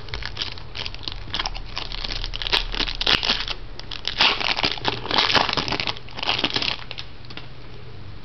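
A trading-card pack wrapper crinkling as it is handled and torn open, in several bursts of crackling, stopping about a second and a half before the end.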